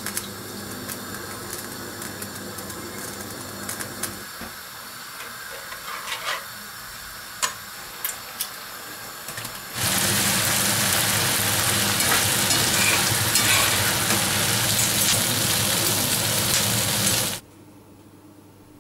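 Pieces of boiled pig-head skin frying in soy-based sauce in a pan. A loud, dense sizzle starts about halfway through, lasts about seven seconds and cuts off suddenly. Before it there are quieter kitchen sounds with scattered clicks and taps.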